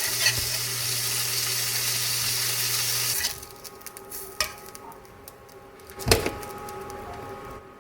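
Food sizzling in a hot frying pan, a loud, even hiss that cuts off suddenly about three seconds in. A few seconds later comes a single sharp knock, like a utensil or pan set down.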